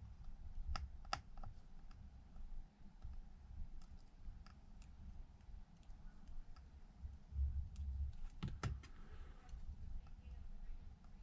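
Scattered light clicks and taps from small tools and parts being handled on a workbench, with a few dull handling bumps, a cluster of clicks about two thirds of the way through.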